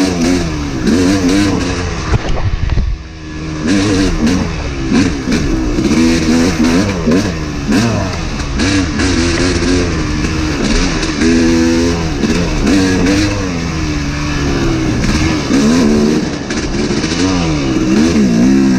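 Two-stroke Yamaha YZ250 dirt bike engine being ridden hard, its pitch repeatedly rising and falling as the throttle is rolled on and off, with a brief let-off about three seconds in.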